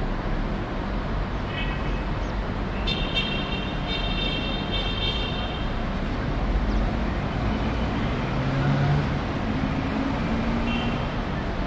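Distant city street traffic: a steady rumble, with short car-horn toots about a second and a half in, a cluster of honks from about three to five seconds in, and another toot near the end.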